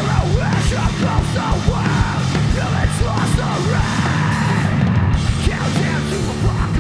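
A live punk/heavy rock band playing at full volume: distorted guitars and bass, fast dense drumming and shouted vocals.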